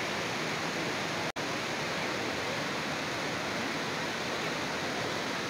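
Steady rushing roar of Bridalveil Fall's water and spray, cut off for an instant about a second in.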